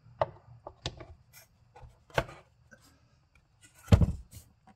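Plastic engine cover being set on and pressed down onto its mounts: a few sharp plastic clicks and knocks, with the loudest thump about four seconds in.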